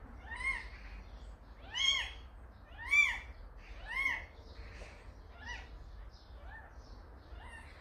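A young kitten mewing over and over: about seven short, high mews that rise and fall in pitch, roughly one a second, loudest in the first half.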